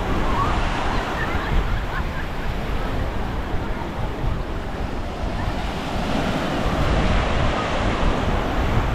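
Small, gentle waves washing onto a sandy beach, with wind rumbling on the microphone.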